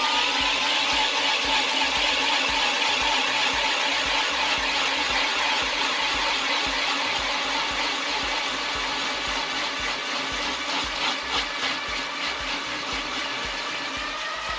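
A battery-powered ice auger drilling a hole through lake ice, its motor running steadily under load with a whine and cutting noise. The pitch rises a little near the end.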